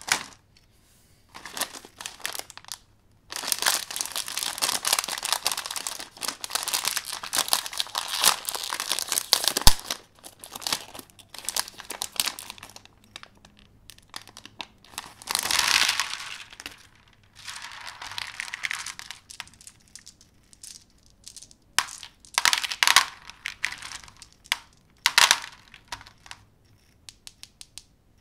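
Foil-lined snack bag crinkling and tearing as it is opened and handled, in long stretches of rustling with pauses. A few light clicks near the end come from small chocolate balls being set down on a tray.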